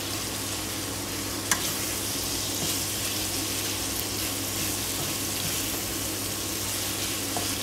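Diced pork belly sizzling in a hot frying pan while a wooden spatula stirs and turns it, a steady frying hiss with light scraping. One sharp click about a second and a half in.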